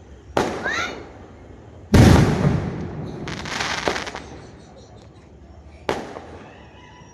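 Fireworks going off: a run of sharp bangs, the loudest about two seconds in followed by about a second of crackling, with another bang near the end.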